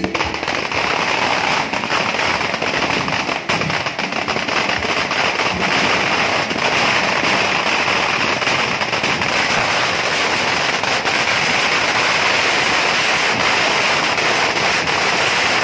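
Firecrackers bursting in rapid, unbroken succession, a loud, dense crackle that keeps up without a pause, as from a long string of crackers set off on the ground.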